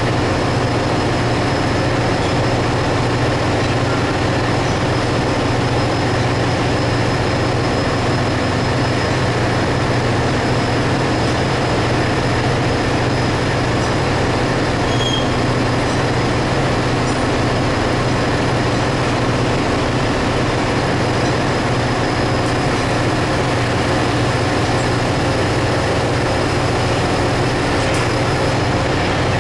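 Steady, loud drone of machinery running in a ship's engine room, with a constant high whine over it.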